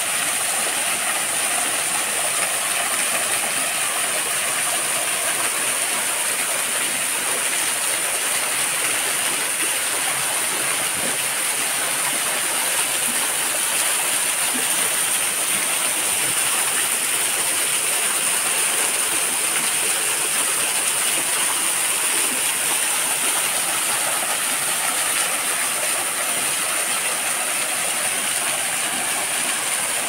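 Waterfall rushing: a loud, steady noise of falling water with no breaks, with a steady high-pitched whine over it.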